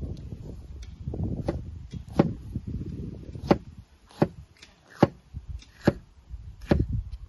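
Large kitchen knife chopping a red bell pepper on a wooden cutting board: about seven sharp knocks of the blade striking the board, irregularly spaced.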